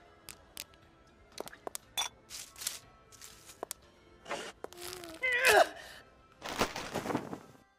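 Props being handled and set down: scattered light knocks, clicks and clatters, with a rustling stretch near the end. A short vocal sound comes about five seconds in, over quiet background music.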